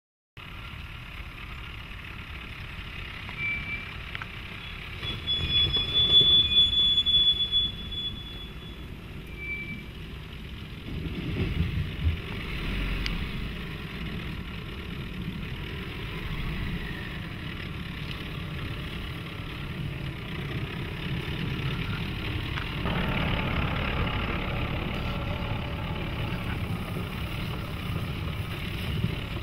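2016 Nissan Navara pickup with its 190 PS 2.3-litre twin-turbo diesel crawling off-road over long grass and brush: low engine and tyre rumble, with a brief high squeal about six seconds in and a bump around eleven seconds.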